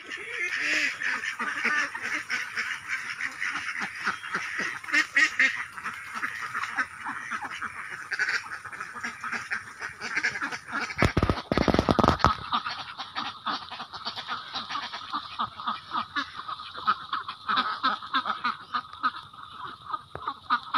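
A flock of domestic ducks quacking continuously while feeding, their bills pecking and dabbling in loose rice grain with a dense rapid clatter. A brief loud rumble breaks in about halfway through.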